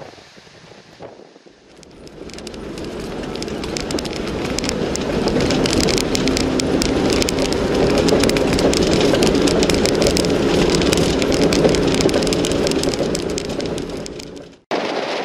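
Vehicle driving on a rough dirt road: engine running steadily under dense rattling and crackling from the rough surface. It builds up over the first few seconds and cuts off abruptly near the end.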